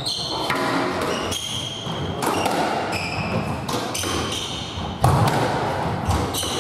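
Squash rally: the rubber ball cracking off rackets and walls about once a second, with the loudest hit about five seconds in, and rubber-soled court shoes squeaking on the wooden floor between shots. The court's hard walls give it a hollow echo.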